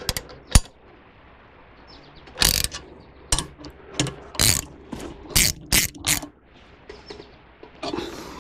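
Hand ratchet wrench clicking as it is worked on a bolt: a couple of sharp clicks at the start, then about eight short runs of ratcheting clicks between two and six seconds in.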